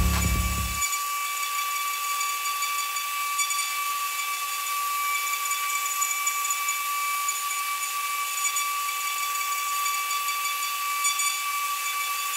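A 2.2 kW CNC router spindle running at high speed with a pointed engraving bit cutting brass: a steady high-pitched whine over a hiss of cutting.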